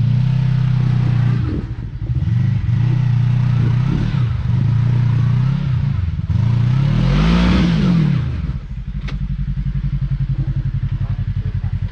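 A side-by-side UTV engine revving up and down in repeated bursts while crawling over rocks, with one longer rise and fall in pitch about two-thirds of the way through. It then settles into a lumpy, pulsing idle, with a single sharp click shortly after.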